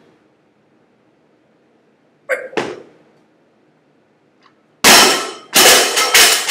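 Loaded barbell clanking twice, then dropped to the floor near the end with one loud crash followed by a few quick rebounds.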